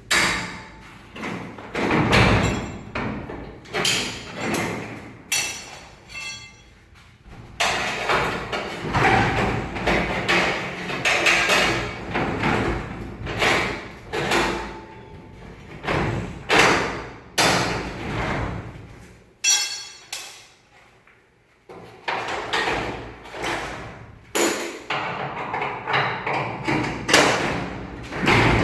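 Irregular metal clanks, knocks and thumps of work on a garage door's rollers and track, a few of them ringing briefly; quieter for a moment about two-thirds of the way in.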